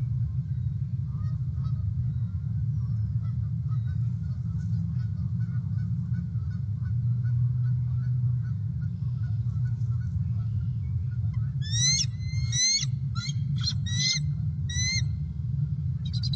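Bald eagle calling at the nest: a quick series of about six short, high, upward-slurred chirps starting just under three-quarters of the way in, with fainter chittering before it, over a steady low rumble.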